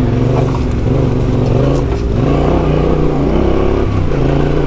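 Motorcycle engine running at low speed on a rough track, its note rising with the throttle about two seconds in and easing off again near the end.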